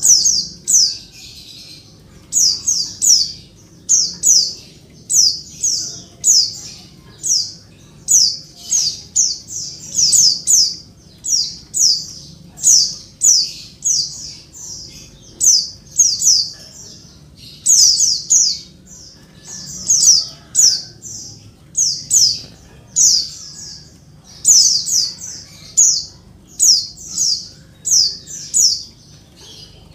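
Female white-eye (pleci) calling noisily: tight clusters of two to four high, sharp, downward-slurred notes, repeated about once a second. This is the call that stirs male white-eyes to answer and sing.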